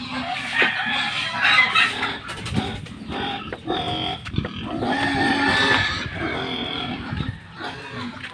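Farm animals calling, with harsh, irregular calls that come loudest about a second and again about five seconds in.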